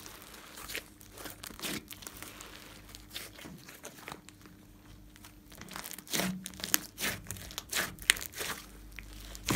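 Glossy slime being stretched, folded and pressed by hand, giving irregular crackles and pops that grow louder and more frequent in the second half.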